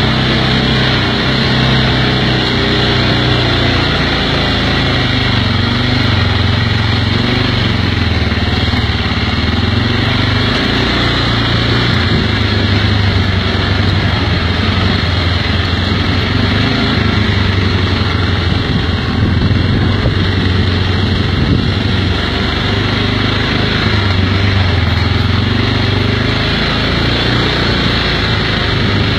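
Kymco MXU 500 quad's single-cylinder four-stroke engine running under way on a dirt track. The engine note rises and falls a little with the throttle over a steady rush of noise.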